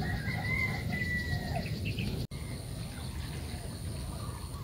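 Outdoor ambience with a bird calling in short gliding whistles over a low rumble. The sound drops out for an instant about two seconds in, and after that a thin steady high tone runs under the rumble.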